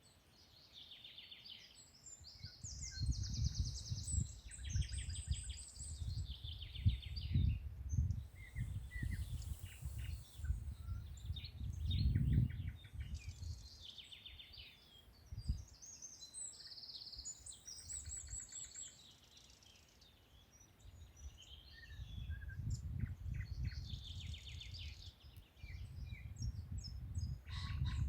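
Several birds singing and chirping together, with trills and quick runs of repeated high notes overlapping throughout. Underneath, a louder low rumble comes and goes in gusts: through the first half, and again from a few seconds after the middle to the end.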